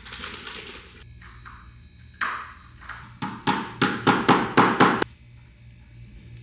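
Claw hammer tapping a metal cabinet hinge plate into a pre-drilled particleboard furniture panel. There is a single blow, then a quick run of about seven sharp taps.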